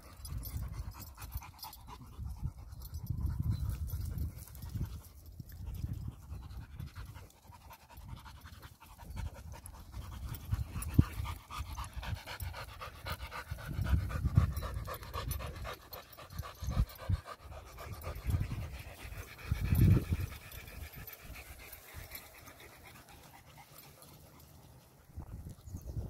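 Rottweilers panting close by while they sniff and dig at a dirt mound. Low thumps and rumbles come now and then, loudest around the middle.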